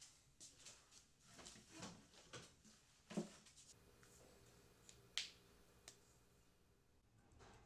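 Faint, scattered clicks and taps in near silence, the loudest a soft knock a little after three seconds and a sharp click about five seconds in.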